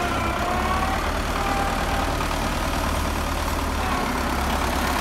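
Belarus 510 tractor's four-cylinder diesel engine running steadily under load while towing a laser land leveler over ploughed soil.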